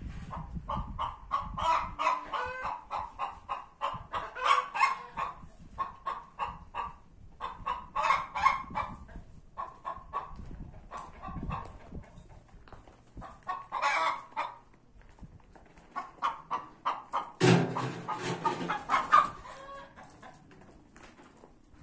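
Hens clucking over and over in short calls, several a second, broken by louder drawn-out calls, the loudest about 17 seconds in and lasting over a second. It is the fussing of two hens wanting the same spot, perhaps to lay.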